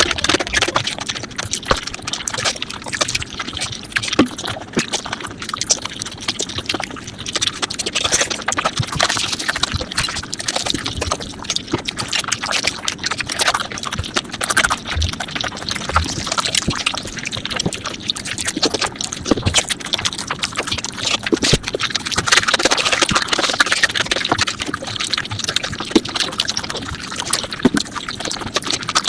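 Close-miked mukbang eating sounds sped up to five times normal speed: chewing, smacking and slurping run together into a dense, unbroken stream of wet clicks and crackles.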